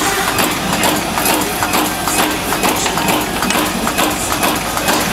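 Workshop machinery clattering: a quick, irregular run of clicks and knocks over a steady mechanical din.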